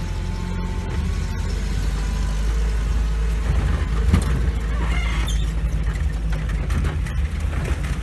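UAZ off-road vehicle's engine running as it drives slowly along a rough forest dirt track, with a thump about four seconds in.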